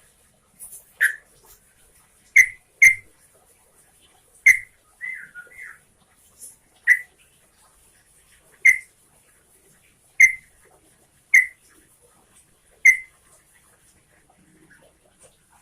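Yellow-vented bulbul (trucukan) giving short, sharp call notes about every second or so, with one brief warbled phrase about five seconds in.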